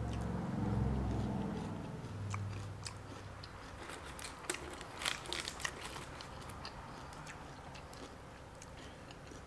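Close chewing and crunching of a deep-fried, cheese-filled jalapeño popper, with sharp crunchy clicks clustered a few seconds in. A low hum from the eater near the start.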